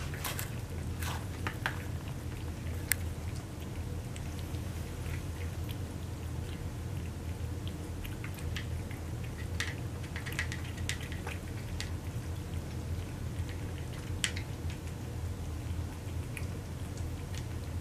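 Several cats eating wet cat food from a shared platter: irregular small wet chewing clicks and smacks, scattered throughout, over a steady low hum.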